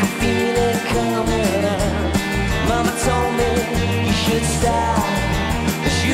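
Rock band playing live, with a sung lead vocal over steady bass, drums and guitars.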